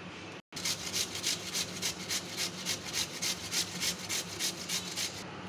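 Raw peeled potato being grated on the coarse side of a stainless-steel box grater: a rhythmic rasping of quick, even strokes, about four a second, starting about half a second in.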